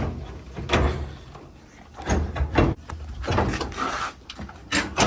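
Metal clunks and scraping as a Samsung dryer drum is set down onto its bottom rollers and shifted into place, several knocks in a few seconds.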